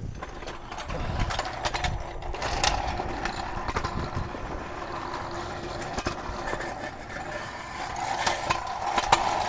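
A vehicle running steadily, with many irregular clicks and rattles over it.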